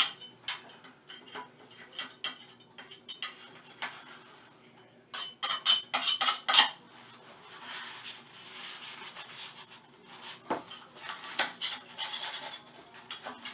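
Metal tools and hardware clinking, knocking and scraping during hands-on toilet plumbing work. It comes as a string of sharp clicks, with a louder cluster of knocks about five to seven seconds in, then a stretch of scraping.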